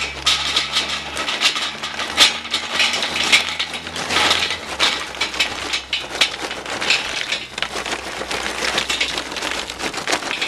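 Charcoal briquettes pouring from a paper bag into the steel charcoal ring of a Weber Smokey Mountain smoker, clattering against the grate and each other in a dense, uneven run of clicks as the ring fills.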